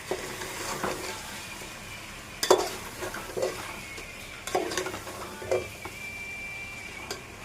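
Food frying in a pan with a steady sizzle, while a spatula stirs it, knocking and scraping against the pan four times.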